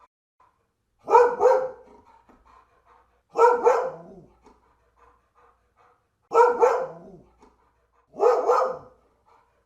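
A dog barking in pairs: four double barks, "woof-woof", spaced about two to three seconds apart.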